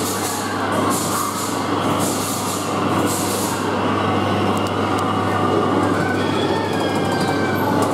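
Loud, steady background din of an indoor kiddie-ride area with a constant low hum, and brief hissy rustles over the first three seconds as the camera is handled.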